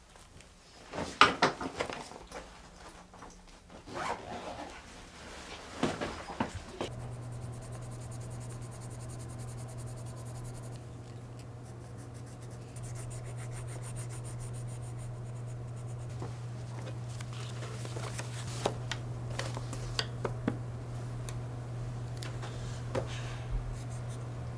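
Rustling and rubbing handling noises with a few sharp clicks, then a steady low hum from about seven seconds in.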